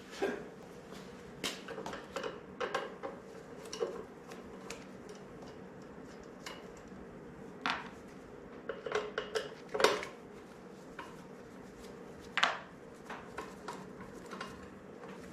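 Hand tools and metal engine parts clinking and tapping as parts are being removed from a small engine: scattered light metallic taps, with a cluster of louder clanks a little past halfway and another one later.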